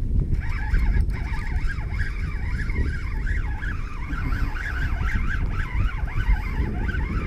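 Spinning reel cranked hard while fighting a fish, its gears giving a whine that rises and falls in pitch with the turns of the handle, over a low rumble of wind on the microphone.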